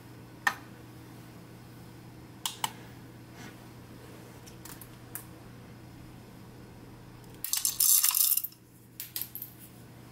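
Whole coffee beans poured from a scoop into a plastic dosing cup on a kitchen scale: a loud rattle lasting about a second, near the end, followed by a few single beans clicking. Earlier there are a few light taps as the cup is set down on the scale.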